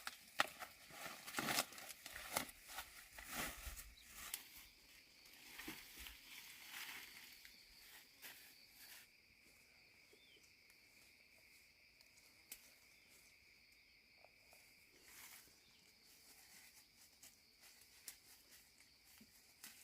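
Faint rustling and crackling for the first nine seconds or so, then near silence with a few faint ticks, under two faint steady high tones.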